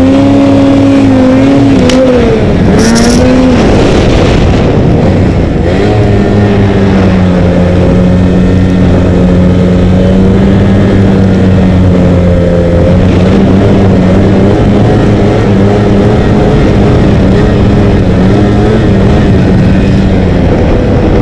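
Ski-Doo XP 800 snowmobile's two-stroke engine running loud under throttle, its pitch rising and falling for the first few seconds, then holding steady as the sled cruises across deep snow.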